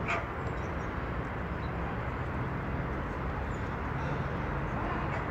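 Steady outdoor background noise of a park, with faint high chirps scattered through it and one short sharp sound right at the start.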